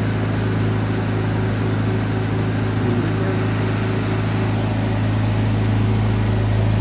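Large forklift's engine running steadily as the truck maneuvers, a deep even hum that grows a little louder near the end.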